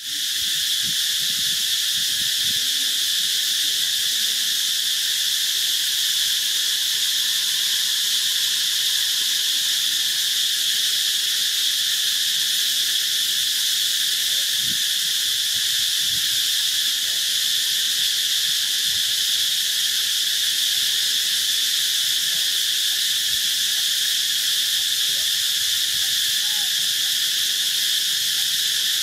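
Steady, high-pitched insect chorus, an unbroken shrill buzz.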